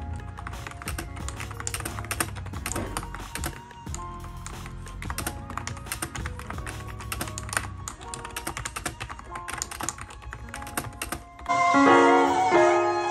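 Rapid typing on a backlit mechanical keyboard, a dense clatter of keystrokes over quiet background music. The typing stops about eleven seconds in and louder piano music comes up.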